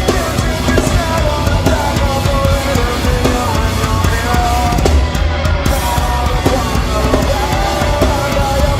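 Heavy metal band playing live, with the drum kit up front and a dense run of bass drum and drum hits under the distorted band sound.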